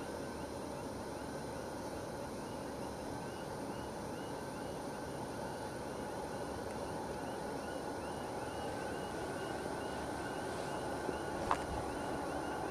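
Distant 2TE116 diesel locomotive approaching with a freight train: a steady, even rumble that grows slowly louder. A faint high chirp repeats about every half second, and a single sharp click comes near the end.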